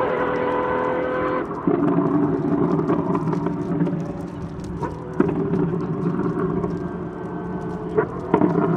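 Apollo Intensa Emozione's V12 engine running at steady revs, its pitch dropping abruptly about a second and a half in and stepping up again about five seconds in. A few sharp exhaust cracks are heard, two of them near the end.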